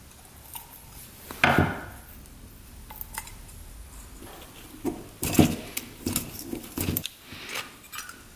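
Metal clinks, knocks and scrapes as a motorcycle carburetor is handled on a workbench and its stuck float bowl worked loose by hand. There is one loud clatter about a second and a half in, then a run of smaller knocks from about five seconds on.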